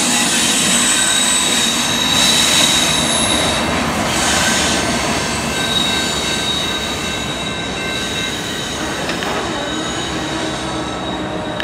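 Freight train cars rolling past on steel rails with wheel squeal: high, steady squealing tones that come and go over the rumble of the wheels.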